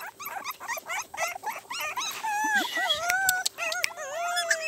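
A litter of newborn puppies whimpering and squeaking: many quick, high cries at first, then longer whines that rise and fall from about two seconds in.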